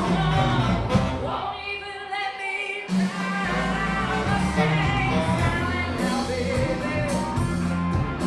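Rock band playing with a lead vocal. About a second in the bass and drums drop out, leaving the voice and higher instruments, and the full band comes back in just under three seconds in.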